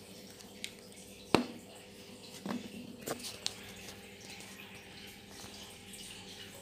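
A few sharp clicks and knocks from handling, the loudest about a second and a half in, over a faint steady hum and a light trickle of water, as from a running aquarium.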